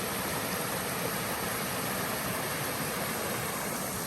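Small river rushing over a rocky cascade: a steady, even rush of water.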